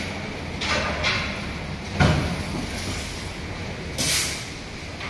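A flat LED panel light being handled on a workbench: short scraping and rustling noises as it is shifted, with one sharp knock about two seconds in, over a steady background hum.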